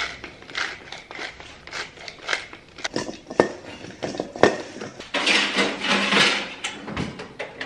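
Cut potatoes being seasoned and tossed with metal tongs in a stainless steel mixing bowl: a run of clicks, taps and scrapes, then a longer rustling clatter about five seconds in.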